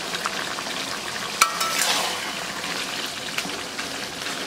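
Chicken pieces frying and sizzling in spiced ghee in a cooking pan, with small crackles throughout and one sharp knock with a brief ring about a second and a half in.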